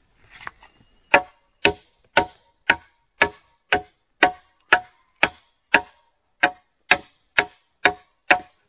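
A hand tool striking wood in a steady rhythm, about two blows a second, some fifteen strikes starting about a second in, each with a short ring.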